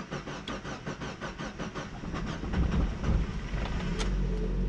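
Mazda Miata NB's 1.8-litre four-cylinder being cranked by the starter, a quick even chugging, then catching about two and a half seconds in and running with a little throttle held open. This is a cold start on a newly installed standalone ECU running a base map.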